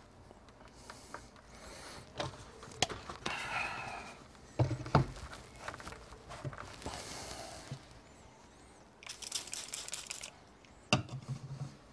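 Irregular rustling, scraping and sharp clicks from hands working at a bowling-ball spinner with its motor stopped, with two dull knocks about four and a half seconds in. The ball is being handled and turned to its next side between sanding passes.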